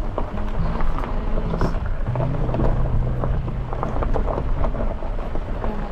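Vehicle driving over a rough unpaved track: a low engine hum with a rumble and frequent small knocks and rattles.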